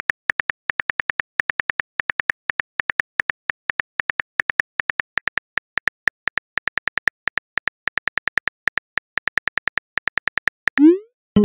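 Phone-keyboard typing sound effect: a steady run of short, sharp clicks, about five a second, as a message is typed letter by letter. Just before the end comes one short rising swoosh.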